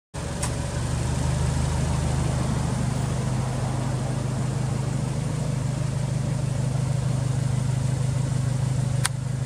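Subaru Impreza WRX STI (GVB) idling steadily, its turbocharged 2.0-litre flat-four heard through a BLITZ aftermarket exhaust.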